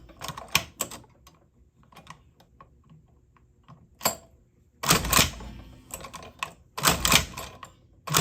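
Cowboy Outlaw hand-cranked leather sewing machine stitching leather, its needle and mechanism clacking with each stroke of the crank: a few light clicks at first, then loud clattering strokes about every second and a half in the second half.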